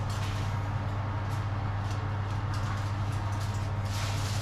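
Steady low electrical hum, with faint rustling and light knocks of a foil-lined roasting tray being handled at the oven, growing a little near the end.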